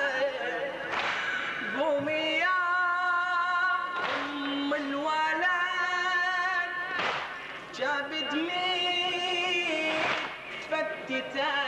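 Amplified male voice singing a Shia Muharram mourning lament (latmiya) in long held, wavering notes. The mourners' chest-beating slaps land together about every three seconds.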